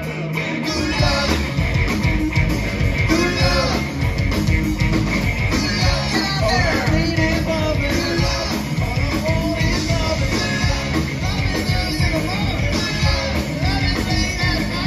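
Live rock band playing: electric guitar, bass and drum kit, with a man singing lead from about a second in.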